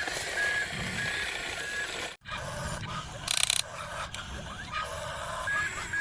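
Evenly spaced electronic beeps, about one and a half a second, that break off about two seconds in and come back near the end, over a low rumble; a short loud hiss about three seconds in.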